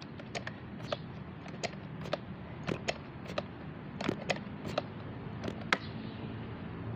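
Irregular light clicks and taps, about two a second, over a steady low hum: handling noise from a phone camera held against a rifle scope's eyepiece. The sharpest click comes near the end.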